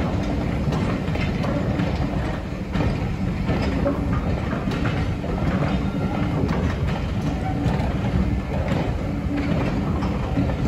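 Rake of railway coaches rolling slowly past, wheels rumbling steadily on the rails with irregular clicks over the rail joints.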